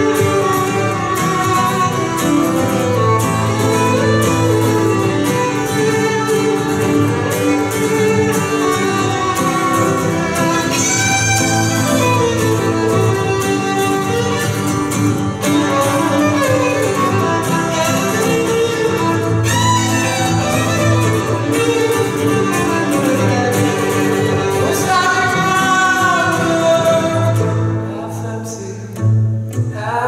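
Live acoustic violin and acoustic guitar playing together: a bowed fiddle melody over a strummed guitar. Near the end the violin drops out and the music thins.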